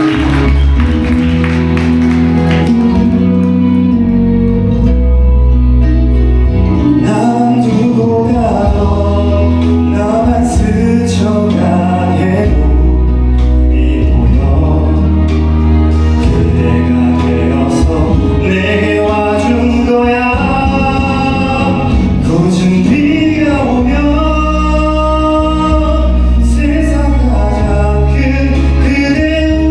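A man singing a slow love ballad over instrumental accompaniment with a steady bass line.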